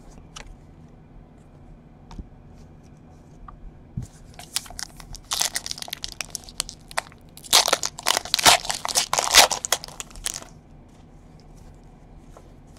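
Foil wrapper of a Panini Unparalleled football card pack crinkling and tearing open by hand, in two stretches of dense crackling starting about four seconds in and again near eight seconds, after a few faint clicks of cards being handled.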